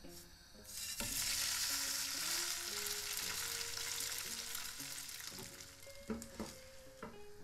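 A tofu-and-potato slab wrapped in nori sizzling in hot oil in a nonstick frying pan as it is laid in. The sizzle starts about a second in, is loudest just after, then gradually eases, with a few light knocks near the end.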